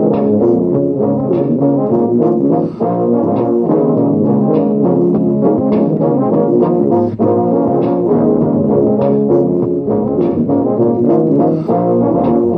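Tuba improvising a melody over a looped tuba bass line and beatboxed percussion in 15/8, several low brass parts sounding at once with a steady clicking beat on top.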